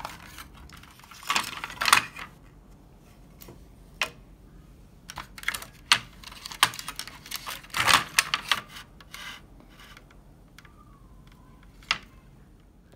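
Irregular plastic clicks and clatter as hands handle the opened casing of a Philips portable CD player and pull its power-supply circuit board and wires free. The loudest cluster comes about eight seconds in.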